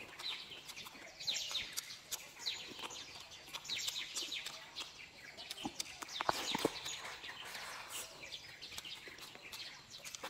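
Small birds chirping over and over in short, quick falling notes, with a few sharp clicks about six seconds in.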